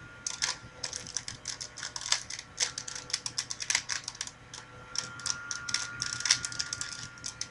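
A plastic 3x3 Rubik's Cube being turned quickly over and over: a rapid, irregular clatter of clicks as the layers snap round. A faint steady high tone hums underneath.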